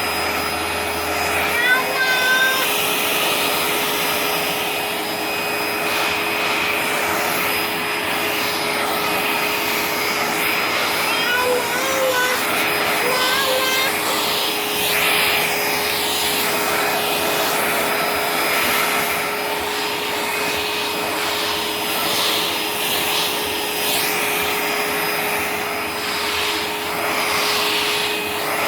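Vacuum cleaner running steadily with a constant motor whine, its suction being used on a cat's fur.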